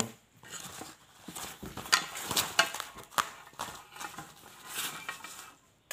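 A fabric flap-top sling bag being handled and folded shut: cloth rustling with a cluster of sharp clicks and taps in the middle, and a little more rustling near the end.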